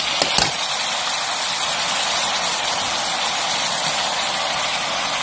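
Pork pieces sizzling in hot oil in a metal wok, a steady hiss, with a couple of clicks of the metal spatula against the wok right at the start.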